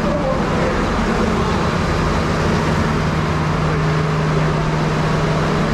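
Steady din of workshop machinery in a sheet-metal bumper factory, with a low, steady hum running under a constant noise.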